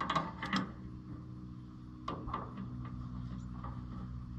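Small light clicks and taps of a switch, screw and wires being handled while an ignition switch is wired in, a cluster in the first second and one more about two seconds in, over a steady low hum.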